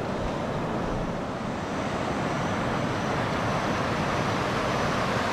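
Honda Biz 100 motorcycle's small single-cylinder four-stroke engine running steadily while riding, mixed with wind and road noise.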